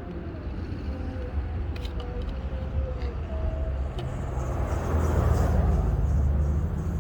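Street traffic rumbling, with a vehicle passing and swelling louder about five seconds in, and a few light clicks near the two-second mark.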